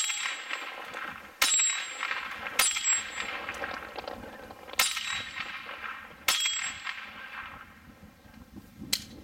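Six shots from a .22 Browning Buck Mark pistol, fired at an uneven pace. Each sharp crack is followed by the brief ring of a steel target being hit. The last shot, near the end, is fainter.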